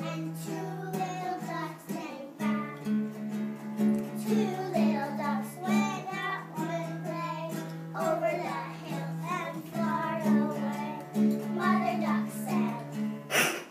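A child singing a song over instrumental music, with held low notes underneath that change every few seconds.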